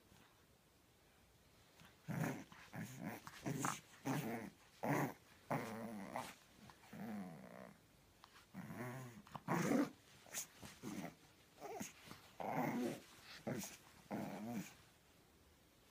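Pug puppy growling in short repeated bursts as it tugs on a pair of jeans in its mouth, a play growl in a game of tug; the growling starts about two seconds in.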